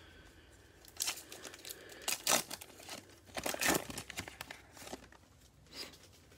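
Plastic wrapper of a Mosaic football card cello pack being torn open and crinkled by hand. It makes a run of irregular crackles and rips from about a second in until near the end, loudest in the middle.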